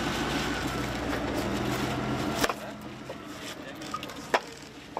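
Concrete paving stones clacking sharply as they are set by hand, a few separate knocks with the loudest near the end. Under the first half a vehicle engine runs steadily, then drops away about halfway through.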